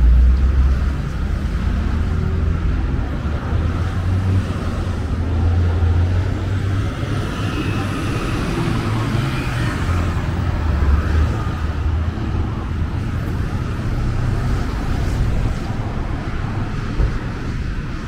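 City street traffic: cars and buses driving past on a busy avenue, a steady low rumble of engines and tyres that swells as vehicles go by, loudest right at the start.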